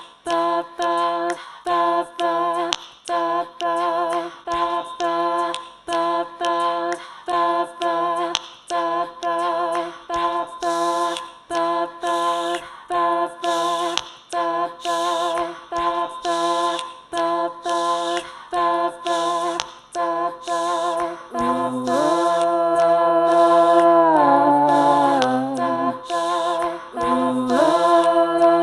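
Layered a cappella female singing built up with a loop pedal: a short chord of sung syllables repeats in quick rhythmic chops about twice a second. About 21 seconds in, sustained harmonised notes with a lower part come in and the sound gets louder.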